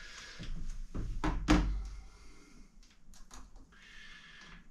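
Handling noise: a few dull knocks about a second in, then light clicks and a short rustle as a multimeter's probes are put to a 12.8 V battery's terminals.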